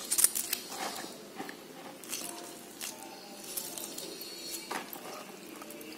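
Light, scattered clicks and taps of hands handling raw fish pieces in a plastic colander while squeezing lime juice over them.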